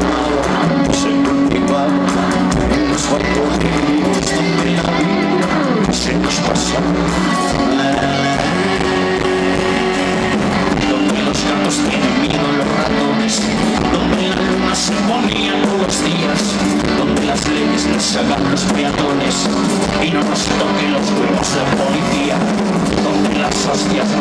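A live rock band playing a song, with electric guitars, bass guitar and drum kit.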